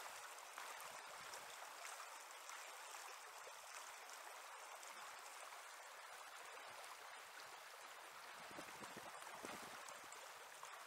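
Faint, steady rush of flowing river water.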